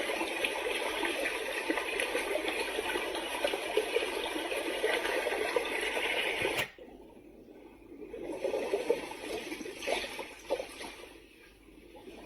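Sound machine of a sunrise alarm clock playing a steady noise track, which cuts off abruptly about seven seconds in and gives way to a quieter, uneven sound.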